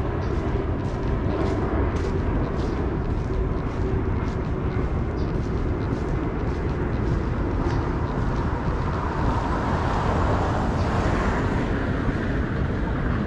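City street ambience heard on foot: steady traffic noise with a vehicle passing, swelling about nine to twelve seconds in, over light footsteps at a walking pace.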